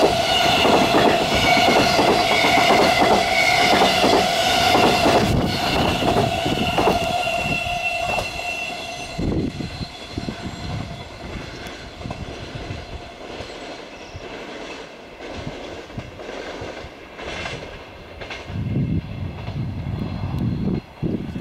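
Freight train's container wagons rolling past at speed, the wheels clattering over the rail joints with a steady high ringing tone. About nine seconds in, the last wagon passes; the tone stops and the clatter drops away to faint clacks as the train moves off.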